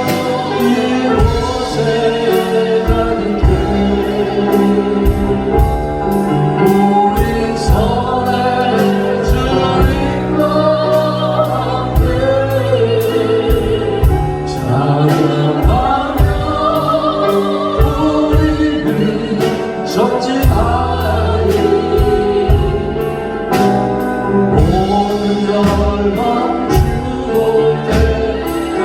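Contemporary Christian worship music: singers performing a praise song over a band with bass and a steady drum beat.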